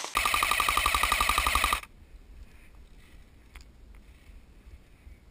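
Airsoft AK-47 rifle firing one fast full-auto burst of about a second and a half, a rapid even rattle of shots, then a few faint clicks.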